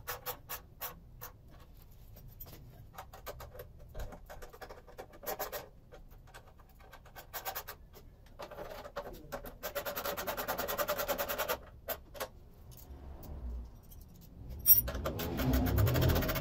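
Ratchet wrench clicking in quick runs of evenly spaced clicks as the front fender's bracket bolts are tightened on the motorcycle fork, with pauses between runs and a single sharp metallic click near the end.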